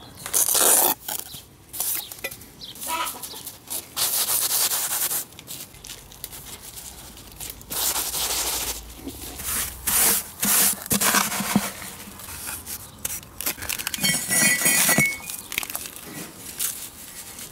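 Bricklaying: a steel trowel scraping wet mortar and bricks being pressed and shifted into the mortar bed, a string of rough scrapes. A chicken clucks briefly about three-quarters of the way in.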